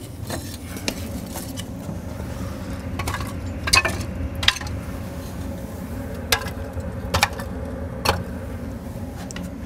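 Dry wooden kindling sticks knocking and clicking against each other and the firebox as they are arranged by hand in a log boiler, with several sharp knocks a second or so apart. Under them runs a steady low hum from the boiler's fan.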